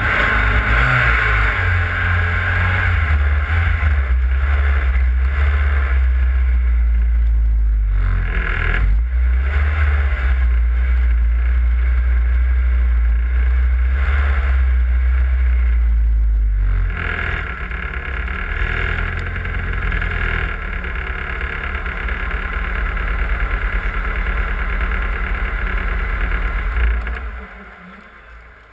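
BMW 318is rally car's four-cylinder engine running as the car rolls slowly, with a heavy low drone. It eases about two-thirds of the way in, then falls away sharply near the end.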